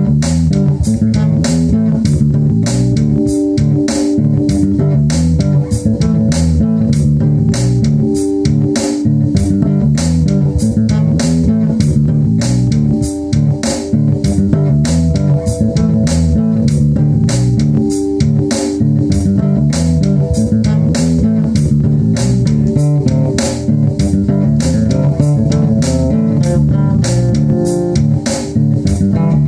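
Electric bass guitar playing a reggae bass line along with a backing track that has a steady, even drum beat.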